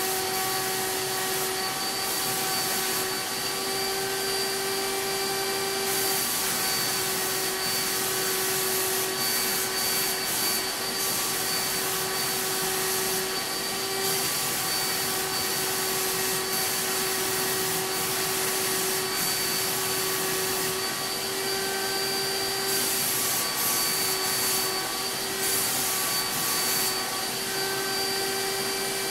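CapSpray turbine HVLP sprayer running with a steady vacuum-like whine, feeding a Titan Maxum II spray gun laying on BIN shellac primer. The air hiss at the gun swells and eases every few seconds as he sprays.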